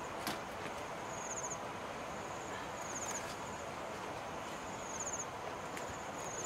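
An insect, cricket-like, chirping in short high-pitched trills, one about every two seconds, over a steady outdoor hiss. A few faint light knocks come from sliced banana stem pieces being handled in a wicker basket.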